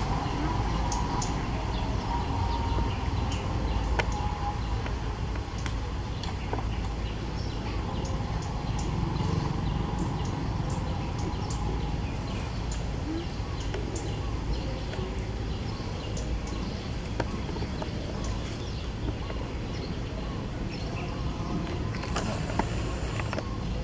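Outdoor ambience: a steady low rumble with scattered short high ticks and chirps.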